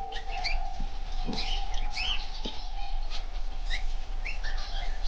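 A colony of small finches chirping, many short, quick calls overlapping, over a steady hum.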